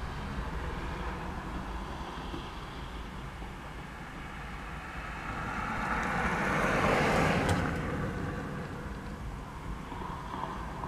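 A car passing close by: its road and engine noise swells to a peak about seven seconds in, then fades as it drives off. A steady low rumble lies underneath.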